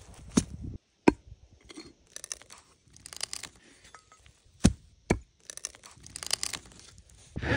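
Crunchy wood-working sounds: footsteps on dry forest litter, then a blade biting into the end of a log, with a few sharp knocks among rasping, crackling noise as the wood is cut.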